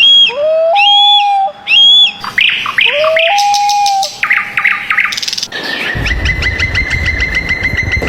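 Birds calling: clear whistled notes, some rising and then held, then fast runs of short repeated notes. From about six seconds in, a steady high trill plays over a low rumble.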